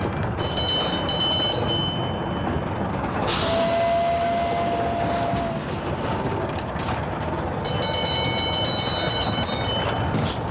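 Dark-ride car rumbling and clattering along its track. A high ringing sound comes in twice, and a single steady tone sounds for about two seconds near the middle.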